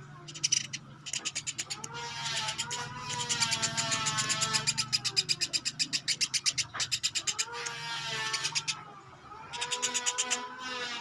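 A batuk beras songbird calling in long, nasal, rapidly pulsed phrases that rise and fall in pitch, several in a row with a short pause about two-thirds of the way through.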